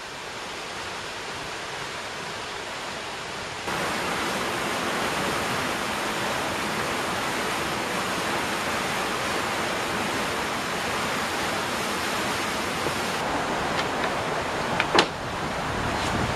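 Steady rush of water pouring through a river weir gate, louder from about four seconds in. A brief sharp sound near the end.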